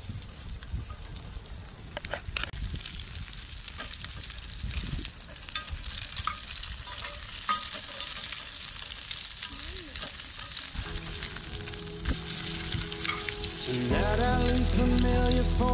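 Food sizzling and frying in a pan over a campfire, with scattered sharp crackles and pops. Background music comes in about eleven seconds in and grows louder near the end.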